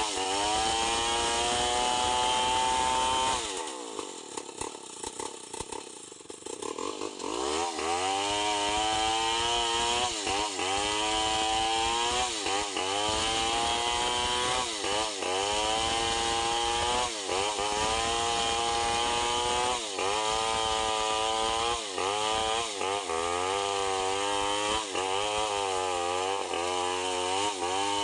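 Stihl 070 chainsaw's big two-stroke engine ripping lengthwise through a log, its pitch sagging under load and picking up again about once a second. About three seconds in it drops to a lower, quieter speed for a few seconds, then revs back up into the cut.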